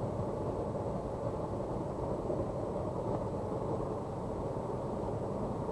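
Steady low outdoor background noise with no distinct events.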